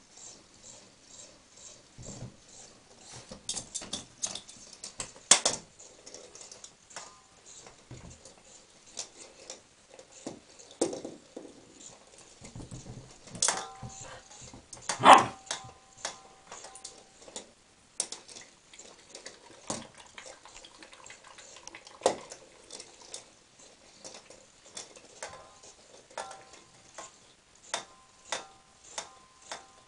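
Border Collie mix puppy barking in short yaps now and then, amid many sharp clicks and knocks.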